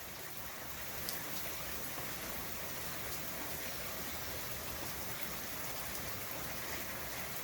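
Steady rain falling, an even hiss with an occasional single drop tick.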